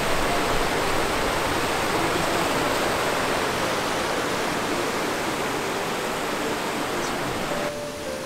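Waterfall: a steady, dense rush of falling water that drops a little in level near the end.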